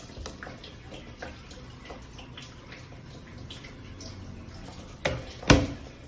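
Fujidenzo JWA-6500 VT top-loading washing machine with water moving and trickling in its tub, and scattered small ticks. Two knocks about five seconds in, half a second apart, the second the louder.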